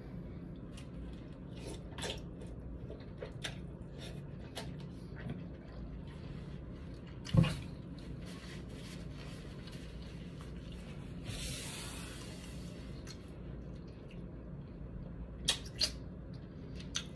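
Eating sounds of someone eating noodles from a bowl with a fork: scattered small clicks and mouth noises over a low steady hum, with one louder knock about seven seconds in and a brief hiss around eleven to twelve seconds.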